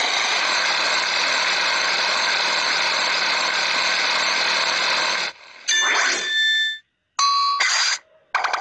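Cartoon lawnmower sound effect from a letter-tracing game: a steady motor buzz for about five seconds that cuts off suddenly. It is followed by three short, bright chime-like dings, the game's reward sounds for a finished letter.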